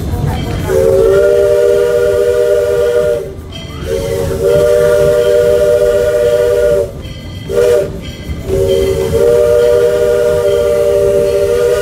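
Chime steam whistle of Baldwin steam locomotive No. 40, several tones sounding together, blown long, long, short, long: the standard signal for a road crossing. A low rumble of the running locomotive lies beneath.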